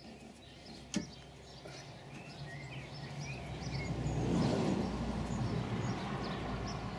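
A vehicle passing by: a smooth rush that swells over a couple of seconds and slowly fades, with a single sharp click about a second in and birds chirping faintly.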